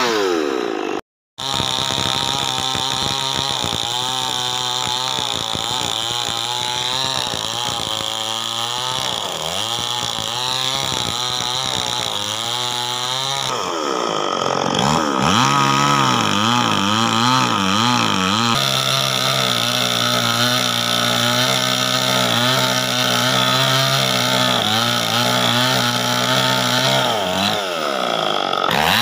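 STIHL chainsaw running and cutting through tree limbs and logs, its engine pitch rising and falling as it revs and loads in the wood. The sound drops out for a moment about a second in.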